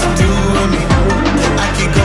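Background hip-hop music: a heavy bass line with falling sub-bass sweeps and a steady drum beat, between rapped lines.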